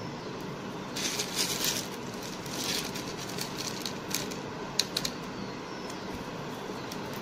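Small beads rattling and clicking against a clear plastic box as fingers scoop handfuls out, with a few sharp clicks near the middle as beads drop back in, over a steady low hiss.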